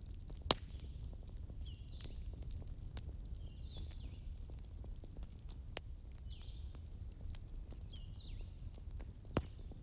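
Wood fire crackling with a steady low rumble, small ticks and three sharp pops. Over it, a bird gives short falling chirps every couple of seconds.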